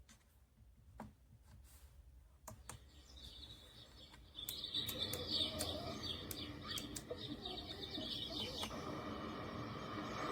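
A few clicks, then the moon lamp alarm clock's sound machine playing a birdsong nature track through its small speaker, chirps building about four seconds in. Near the end the birdsong stops and a steady rushing sound takes over.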